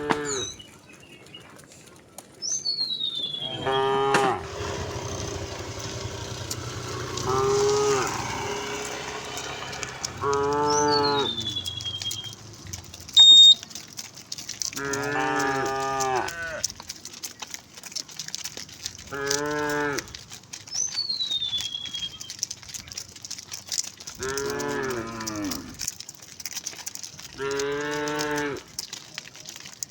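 Cows mooing, about seven drawn-out moos of one to two seconds each, spaced a few seconds apart. High, falling whistled calls come in between, and a brief, sharp high-pitched tone about 13 seconds in is the loudest moment.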